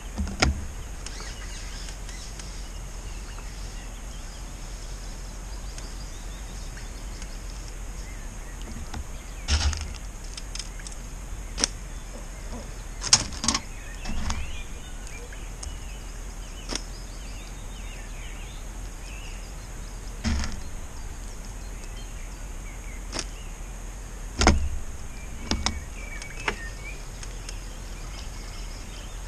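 Scattered sharp clicks and knocks of fishing tackle being handled at the bankside, over a steady high hiss with faint bird chirps.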